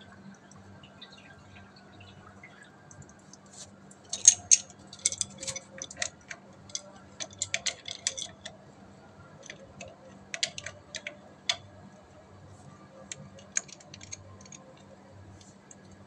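Metal wrench clicking and clinking against the brass valve and pipe fittings under an electric water heater as they are worked. The ticks come sharp and irregular, in a busy cluster from about four seconds in, thinning out toward the end, over a faint low hum.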